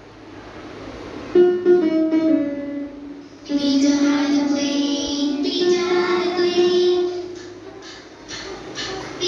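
Children's phonics song for the letter P: a child's singing voice with musical backing, in phrases that start about a second and a half in and again a couple of seconds later.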